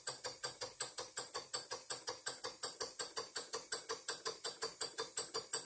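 PM Research No. 3 model steam engine running steadily, with a quick, even beat of about seven strokes a second, driving a small pillar drill press by belt.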